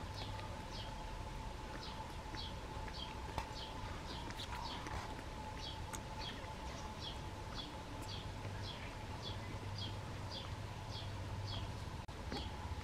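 A short, high chirp repeating evenly about twice a second, over a faint steady whine and a low hum.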